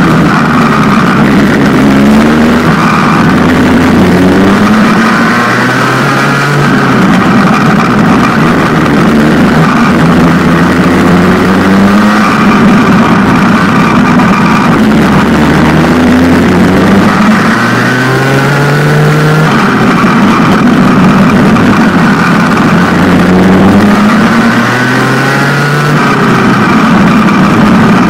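Rotary-engined racing kart at full race pace, loud and close. The engine note climbs steadily in pitch over a few seconds and then drops away, over and over, as the kart accelerates and lifts off again.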